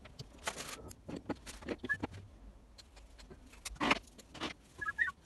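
Irregular clinks and knocks of metal engine parts and tools being handled on an engine block during piston fitting, the loudest knocks about four seconds in.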